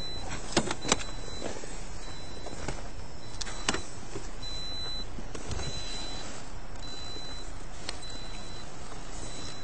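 A car's open-door chime beeping faintly about once a second over a steady hiss, with a few sharp clicks from the open driver's door and seat as the driver shifts about.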